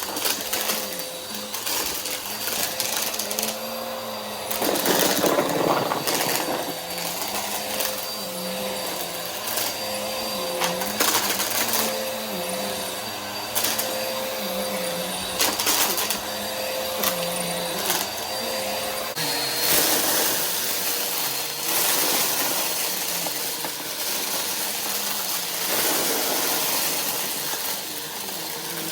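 Vacuum cleaner running over confetti with an overflowing dust bin: a steady motor hum with a wavering low tone, broken by many scattered crunches and clicks as the bits are sucked up. The motor's pitch drops slightly about two-thirds of the way through.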